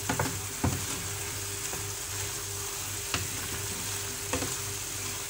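Chicken in a spiced green gravy sizzling in a frying pan while it is stirred, with a few sharp knocks of the stirring utensil against the pan.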